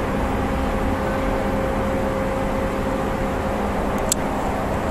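The Antonov An-225 Mriya's six Progress D-18T turbofan engines at takeoff thrust, a steady jet roar as the aircraft climbs away just after liftoff. A brief click sounds about four seconds in.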